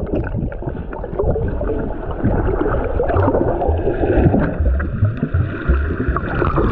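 Seawater sloshing, splashing and gurgling right at the microphone, with irregular muffled low rumbles, as a camera is held at or under the surface among swimmers.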